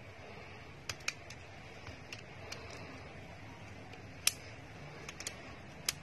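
Scattered sharp clicks and snaps of a plastic phone housing being pried apart with a metal opening tool as a Nokia 230's case clips release, the loudest a little past four seconds in.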